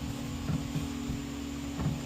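Light knocks of a car speaker being handled and test-fitted against a door's metal frame, twice, over a steady low hum.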